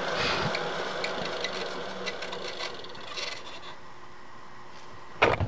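Faint mechanical whirring from the milling machine that fades over the first few seconds, with scattered light clicks, then a single sharp knock near the end.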